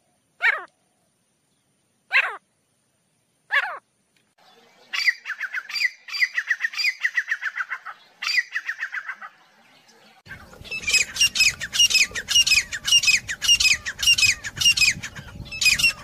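Grey francolin (teetar) calling: three single down-slurred calls about a second and a half apart, then a fast run of repeated notes. From about ten seconds in comes a louder rapid series of about four notes a second, with a low rumble underneath.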